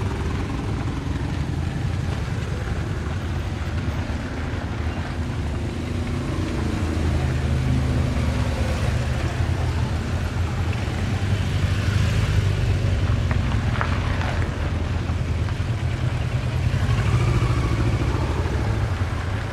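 A slow procession of motorcycles and cars passing close by, their engines running in a continuous low rumble that grows louder about halfway through.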